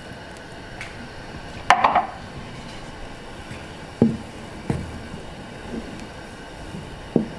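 Utensils knocking against a metal soup pot: one loud clunk a little under two seconds in, then a wooden spoon stirring the soup and tapping the pot's side a few times.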